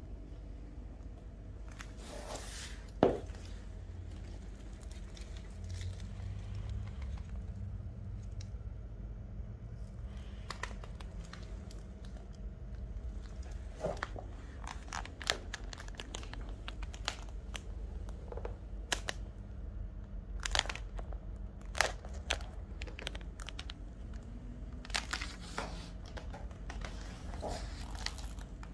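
Shiny PVC thigh-high boots crinkling and rustling in short, irregular bursts as the legs shift and cross, with scattered light clicks and one sharp click about three seconds in.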